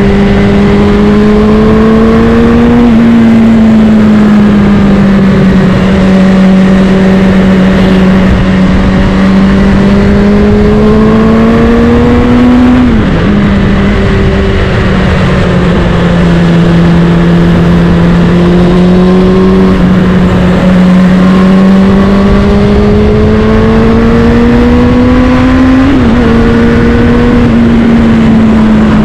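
Suzuki Bandit 650's inline-four engine running through a Black Widow aftermarket exhaust while riding, heard onboard with wind rush. The engine note climbs slowly under throttle and drops back sharply three times, a few seconds in, about halfway through and near the end.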